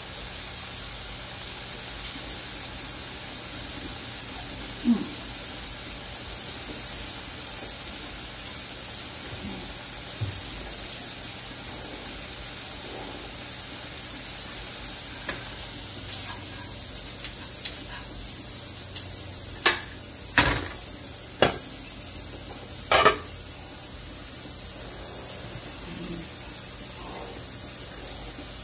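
Steady hiss with occasional sharp knocks and clinks of kitchenware: one a few seconds in, and a quick run of four about three-quarters of the way through.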